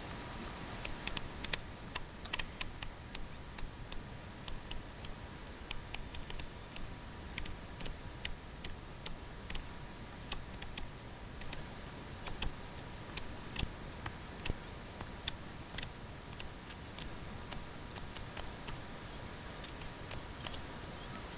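Paper pages of a small hand-made flipbook snapping off the thumb one by one as it is flipped: a stream of sharp, irregular paper ticks, a few a second, over a steady hiss.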